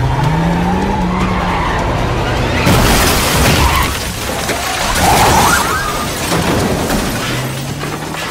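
Film sound mix of a car crash: a vehicle engine and skidding tyres, then, about three seconds in, a loud crash as a van is struck and rolls over, with a second loud impact about two seconds later.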